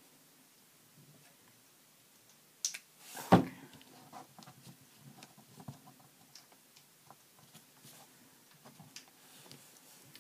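A single sharp clack on the craft table about three seconds in, then faint paper rustling and small taps as a sticky rivet is pressed onto a small paper tag.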